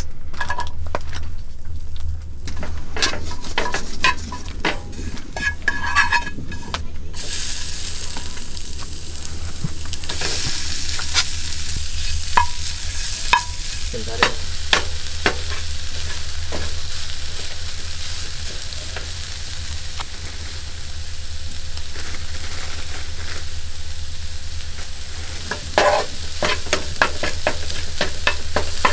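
Whitefish pieces frying in oil in a skillet on a portable butane camp stove. A steady sizzle sets in suddenly about seven seconds in, after some taps and clicks. A knife blade scrapes and taps in the pan as the fish is stirred, most busily near the end.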